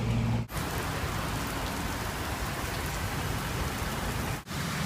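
Steady rain falling, an even hiss. A low hum is heard in the first half second before the sound cuts over to the rain, and the audio breaks off briefly near the end.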